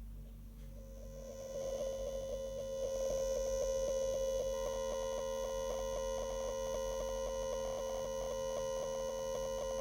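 FeiyuTech Vimble One single-axis smartphone gimbal's motor running with a steady electronic hum and a fine rapid ticking, growing louder about a second and a half in. This is the unwanted noise the stabilizer makes in operation.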